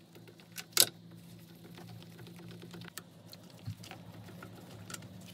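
Faint, irregular clicks and taps of spark plug caps and spark plugs being pulled and handled on a snowmobile's two-stroke triple engine, with one sharper click about a second in, over a faint steady low hum.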